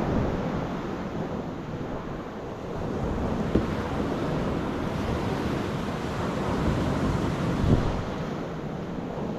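Sea surf washing on a rocky shore, with wind buffeting the microphone. Two sharp knocks stand out, about a third of the way in and again near the end.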